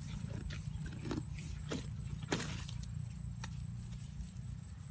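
A hoe chopping into damp soil: a few dull thuds about half a second to a second apart, over a steady low rumble.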